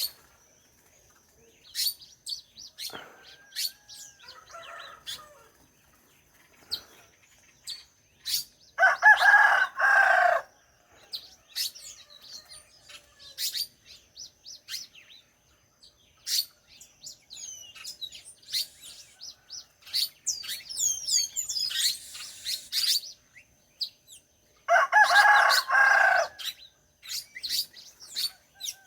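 Rooster crowing twice, about nine seconds in and again near the end, each crow lasting about a second and a half and the loudest sound here. Small birds chirp throughout.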